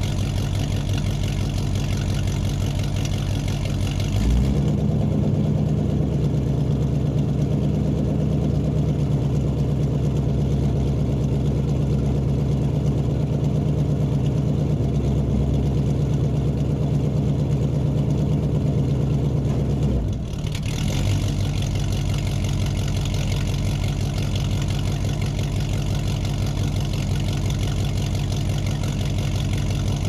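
Muscle car engine idling in a large, echoing room. About four seconds in, its steady note changes to a slightly louder, bassier run, and it returns to the earlier idle at about twenty seconds.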